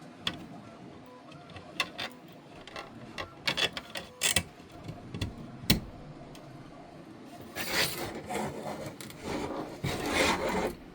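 Hard 3D-printed plastic parts being handled: scattered sharp clicks and taps, then about three seconds of scraping and rubbing in the second half.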